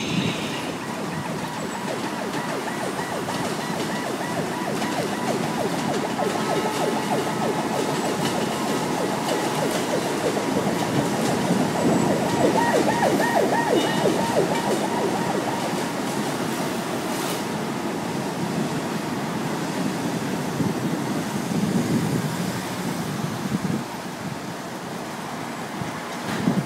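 Electric commuter train rumbling across a steel-girder railway bridge, growing louder to a peak about halfway through and then fading as it moves away. A faint steady whine sounds over the rumble through the first two-thirds.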